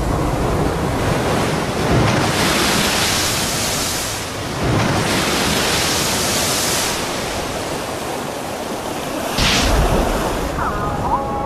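Heavy sea surf breaking on a rocky shore, a dense rushing wash that swells with a breaking wave about two seconds in, again about five seconds in, and briefly near the end.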